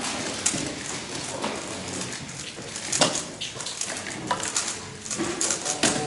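Scattered sharp plastic clicks from a speedcube being handled and turned, with a cluster of quicker clicks near the end.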